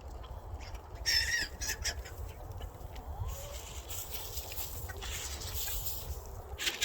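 Chickens clucking, with a loud harsh burst about a second in and a stretch of rustling noise in the middle.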